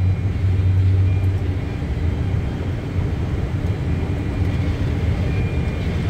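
Boeing 747 flight-deck noise in flight: a steady low rumble of engines and airflow, easing slightly about a second and a half in.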